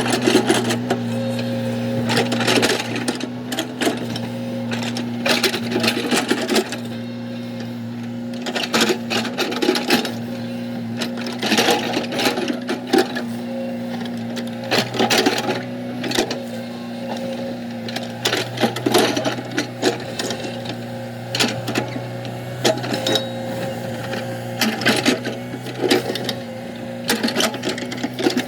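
Komatsu excavator's diesel engine running steadily under work, with frequent irregular clanks and scrapes as the digger works the dirt and rock of the road.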